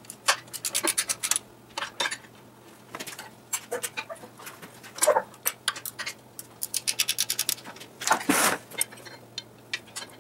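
Socket ratchet clicking in several quick runs, about nine clicks a second, as bolts are worked loose on an old air compressor. A few louder metal scrapes and clanks come in between, the loudest about eight seconds in.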